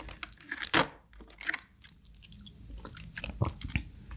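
Close-up eating sounds of soy sauce marinated crab (ganjang gejang): crab shells clicking and crackling as pieces are picked off the plate and handled, with chewing sounds. Sharp separate clicks, the loudest about a second in and several more near the end.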